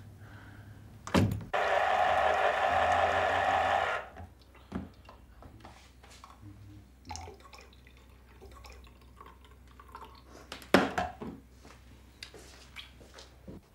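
A door knocks shut, then an electric citrus juicer's motor runs steadily for about two and a half seconds and stops abruptly. Afterwards come light clicks and knocks of the juicer parts and a glass being handled as orange juice is poured, with one loud clack near the end.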